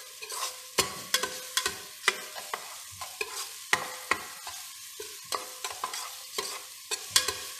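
Minced garlic sizzling in hot oil in a stainless-steel pressure-cooker pot while a spatula scrapes and knocks against the pot bottom in irregular strokes, two or three a second. The garlic is being fried until fragrant.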